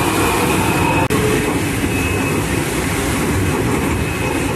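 Racing trimaran driving at speed through big breaking waves: a loud, steady rush of water and spray over a heavy rumble, with wind on the microphone. There is a brief break about a second in.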